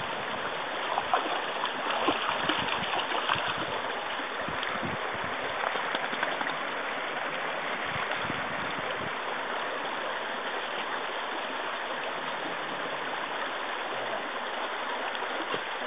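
Shallow rocky stream trickling and babbling over stones in a steady rush of water. A few brief splashes and knocks come in the first half, as dogs wade in it.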